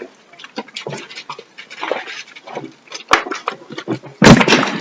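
A dog panting in quick, uneven breaths, with a louder burst of noise near the end.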